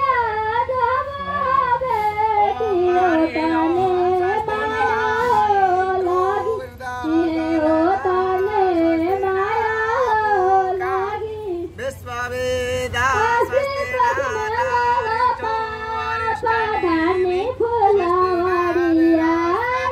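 Women's voices singing a traditional wedding song, a melody held in long gliding lines with short pauses about seven and twelve seconds in.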